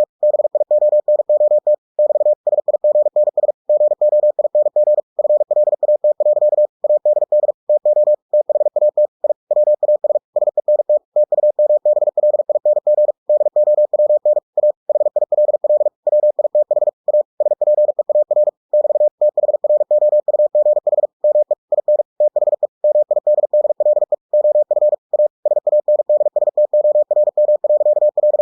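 Computer-generated Morse code (CW) at 45 words per minute from the ebook2cw program: a single mid-pitched tone keyed on and off in rapid dots and dashes, with slightly longer gaps between words.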